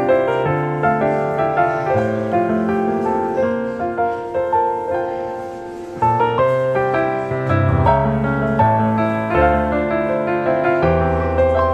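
Background piano music, a run of struck notes that goes softer about five seconds in and then picks up again.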